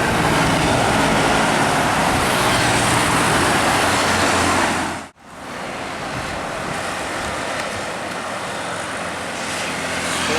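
Close road traffic: a bus engine running under tyre and road noise, loud and steady. About halfway through it cuts out abruptly, then carries on as quieter, steady traffic noise.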